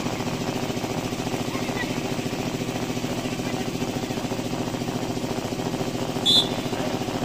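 An engine running steadily with an even, fast-throbbing low hum. About six seconds in, a short sharp blast of a referee's whistle.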